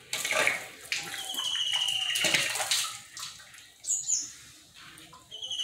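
Water from a garden hose flushing through a motorcycle radiator and splashing down into a bucket of water, strong at first, easing off in the middle, then picking up again near the end. A high trilled whistle sounds over it about a second in and again at the end.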